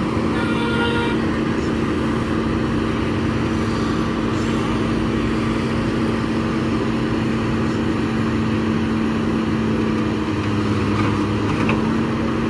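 SANY crawler excavator's diesel engine running steadily under load with a constant hum while the machine levers itself onto a flatbed truck's ramp. A brief high-pitched squeal about half a second in.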